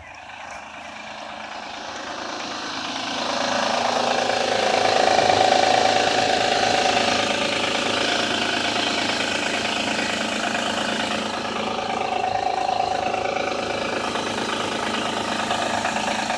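2007 Honda Odyssey's 3.5-litre V6 running at cold idle with a rattling clatter, which the owner suspects comes from the timing belt. It grows louder over the first few seconds and then holds steady.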